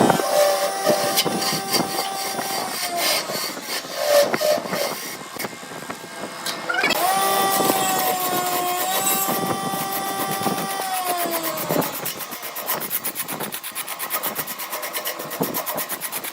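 Wood lathe running with a turning tool cutting the spinning wood: a high whine that holds steady, then drops in pitch about eleven seconds in, followed by rapid ticking.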